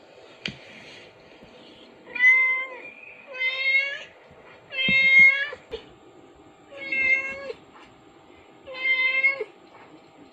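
Cat meowing five times, each call lasting well under a second with a steady pitch, spaced one to two seconds apart. There is a faint click near the start and a couple of soft knocks about five seconds in.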